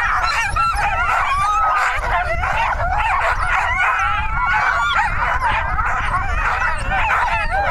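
A team of sled dogs barking and yelping over one another without a break, many voices at once. It is the excited clamour of dogs held in the starting chute, eager to run.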